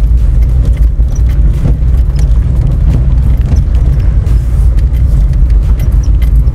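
Steady low rumble of a vehicle rolling downhill on a dirt road, from its tyres and engine, with scattered small clicks.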